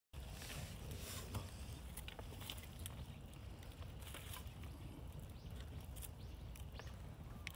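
Faint outdoor field ambience: a steady low rumble with scattered small clicks and rustles, and a few short high chirps near the end.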